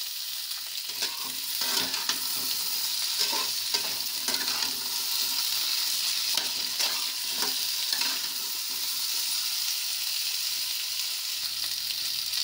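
Diced raw potatoes and pointed gourd sizzling in hot oil in a kadhai, with a steel spatula scraping against the pan as they are stirred. The stirring strokes stop about eight seconds in and the steady sizzle goes on.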